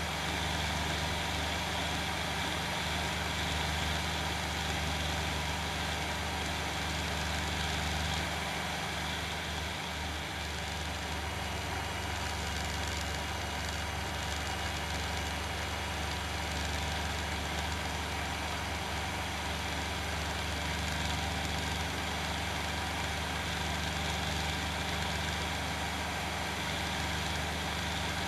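Challenger II ultralight's engine and propeller running steadily in cruise flight, heard from on board the aircraft.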